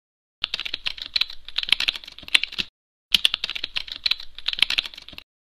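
Computer-keyboard typing sound effect: quick keystrokes in two bursts of about two seconds each, with a short pause between.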